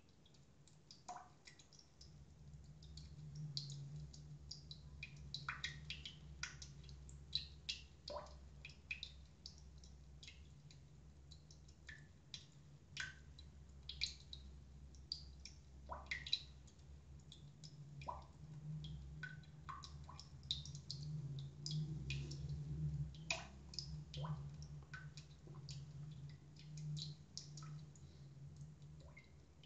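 Faint, irregular small clicks and ticks scattered through, over a low hum that swells and fades.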